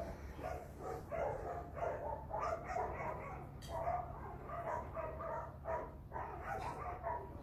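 A dog giving many short, high-pitched cries in quick runs, excited at close quarters with cats.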